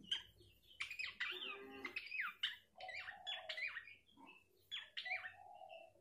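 Horsfield's babbler calling in several quick runs of short, sliding chattering notes, with a few lower notes in between.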